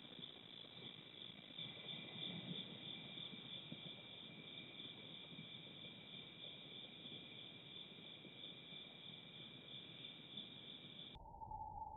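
Chorus of night insects trilling steadily and faintly, a continuous high-pitched shrilling. Near the end it abruptly drops to a much lower pitch.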